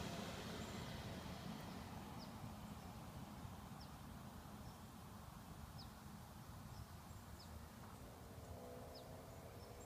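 A Mercedes-Benz E-Class wagon's engine and tyres fading to a low rumble as it drives away, while a bird repeats a short, high, falling chirp about every second and a half. A faint wavering tone comes in near the end.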